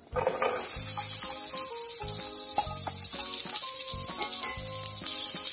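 Chopped onion sizzling steadily as it fries in hot oil with minced garlic in a nonstick pan, the sizzle starting suddenly as the onion goes in.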